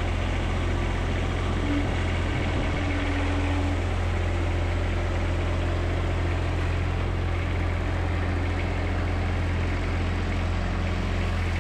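1997 Jacobsen TurfCat II's 23.5 hp diesel engine running at a steady low speed while the mower is driven slowly.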